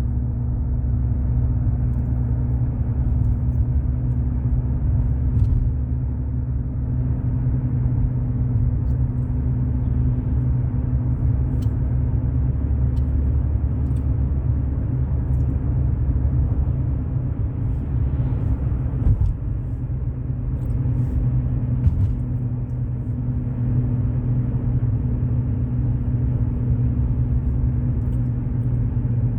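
Steady low rumble of a car driving, engine and road noise heard from inside the cabin, with a constant low hum.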